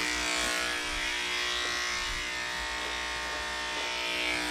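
Cordless dog clippers fitted with a 7 blade, buzzing steadily as they shave down a Standard Schnauzer's coat.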